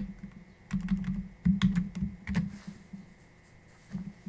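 Typing on a computer keyboard: a scatter of irregular keystrokes over the first two and a half seconds, a pause, then a couple more keystrokes near the end.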